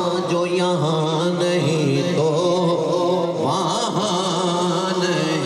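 A man's voice chanting a naat, Urdu devotional poetry, in long held lines whose pitch wavers and slides in ornaments.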